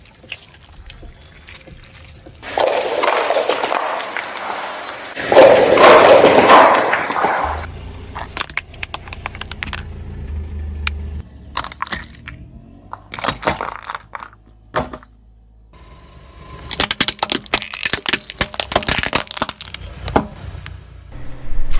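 A car rolling over objects and crushing them: two long bursts of crunching, then a low rumble with scattered cracks and snaps, and a dense run of cracking and breaking near the end.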